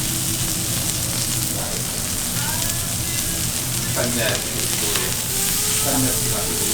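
Food sizzling steadily on a hot cooking griddle as a chef cooks wagyu beef.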